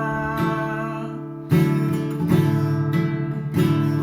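Acoustic guitar strumming chords, a fresh strum roughly every second, with the last sung note of a phrase fading out near the start.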